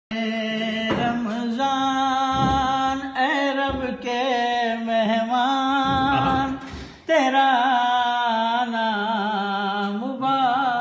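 A man singing unaccompanied: long, drawn-out held notes with wavering ornaments, the opening of an Urdu Ramadan naat, over a steady low drone. There is a short break for breath about seven seconds in.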